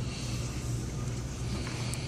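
A steady low hum with a constant hiss over it.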